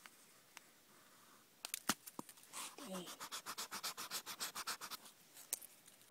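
Fast back-and-forth rubbing on notebook paper, about eight strokes a second for a couple of seconds, after a few sharp taps.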